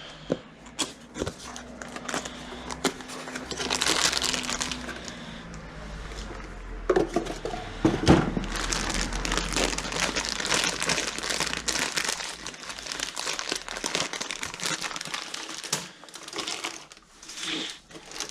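Crinkling and rustling of packaging being handled and opened, with small sharp clicks and knocks: the new ignition coil being unpacked.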